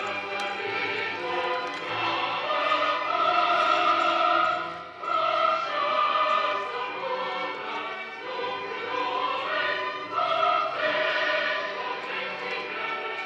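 A choir singing with orchestral accompaniment in long held notes, with a short break between phrases about five seconds in.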